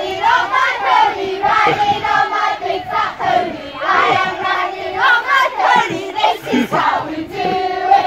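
A group of young children singing a campfire action song together.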